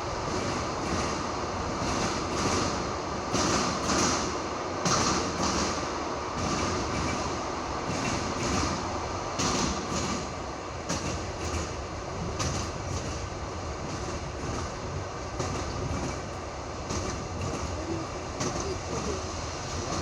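Passenger train wheels clicking over the rail joints of jointed track laid on wooden sleepers, the classic clickety-clack, heard from aboard the carriage over a steady rolling rumble. The clicks come in repeated clusters as each bogie crosses a joint.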